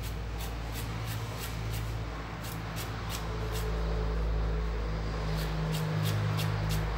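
Kitchen knife chopping a carrot into thin strips on a wooden cutting board: quick taps of the blade on the board, about three a second, over a steady low hum.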